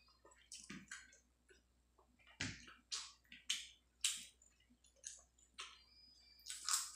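A person eating rice with their fingers: irregular sharp, wet smacks and clicks of chewing and of fingers mixing rice on the plate, one or two a second, the loudest near the end.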